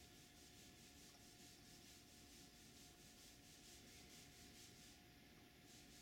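Near silence: a faint steady hiss with a faint steady tone beneath it.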